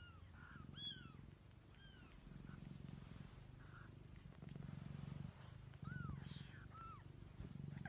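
Mother cat purring softly in long pulsing stretches, with a newborn kitten giving tiny high mews, a few near the start and two more near the end.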